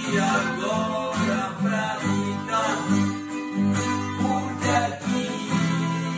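Two acoustic guitars strummed and picked together, playing a song's chord accompaniment with a steady rhythm.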